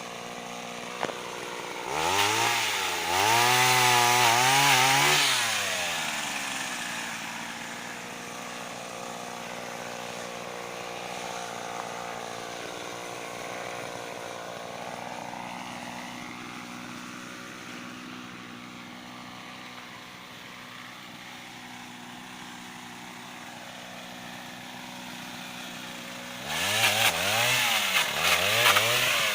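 Pole saw driven by a Mitsubishi TL26 two-stroke brush-cutter engine, idling steadily. About two seconds in it is revved hard for a few seconds, the pitch rising and falling, then drops back to idle. It revs up again near the end.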